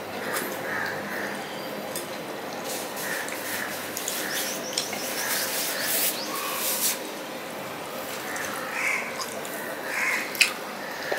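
Eating sounds: fingers squishing and mixing rice and curry on a steel plate, with chewing and small mouth clicks, and a tissue rustling across the mouth around the middle. Crows caw now and then in the background.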